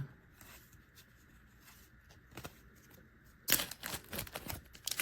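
Faint rustling and light clicks of Pokémon trading cards being handled. From about three and a half seconds in, a run of crinkling from plastic packaging being handled.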